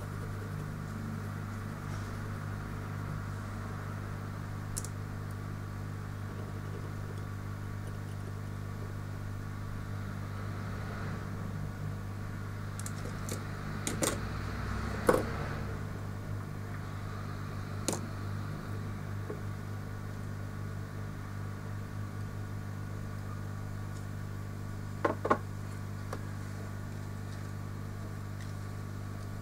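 Steady low electrical hum, with a few sharp clicks of small hard tools against a hard surface, a cluster about halfway through, one a few seconds later and a pair near the end.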